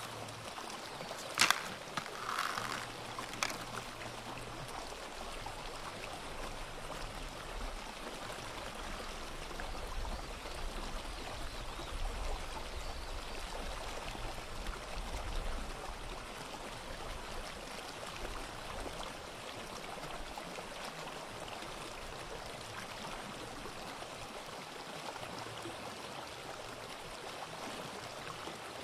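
Recorded sea waves washing on a shore: a steady wash with a low rumble that swells in the middle. Three sharp clicks stand out in the first four seconds.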